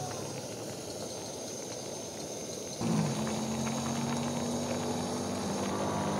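MSR WhisperLite liquid-fuel stove burning with a steady roar under a pan of simmering soup. About halfway through, background music with held low notes comes in over it.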